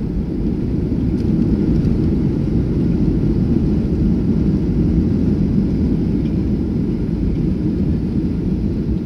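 Loud, steady low rumble in the cabin of a Boeing 737-400 rolling out on the runway just after touchdown: engine noise and wheel rumble as the jet decelerates with its ground spoilers up.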